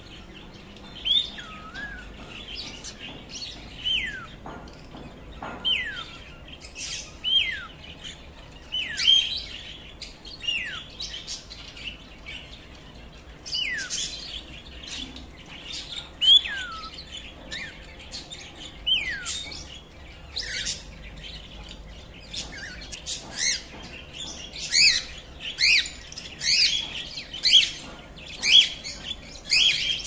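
Caged pet parrots, mainly cockatiels, calling: short whistles that slide steeply down in pitch, repeated every second or two. The calls grow into a busier run of sharp chirps and squawks near the end.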